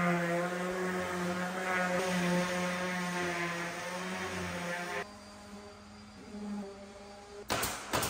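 DeWalt random orbital sander running on a wooden board, a steady buzzing hum that stops abruptly about five seconds in. Near the end there is one sharp knock.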